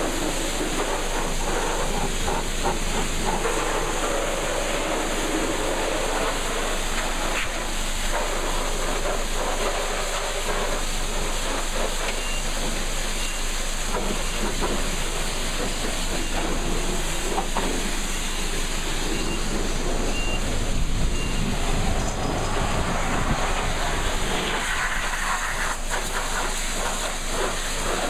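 High-pressure water spray from a pressure-wash wand hissing steadily as it blasts the underside of a car's hood.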